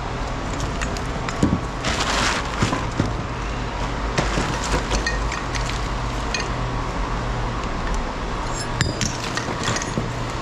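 Scrap metal clinking and knocking as it is handled, with a brief scraping rush about two seconds in and a cluster of clinks near the end, over a steady low hum.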